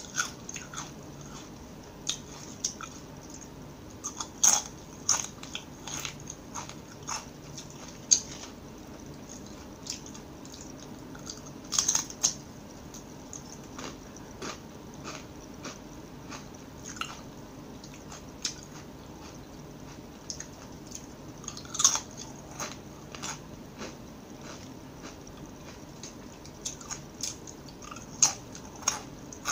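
Close-miked biting and chewing of crispy purple sweet potato chips: sharp, irregular crunches, a few much louder bites, with quieter chewing in between.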